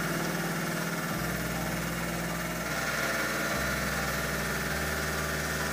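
CNC milling machine running steadily, its low hum shifting a few times.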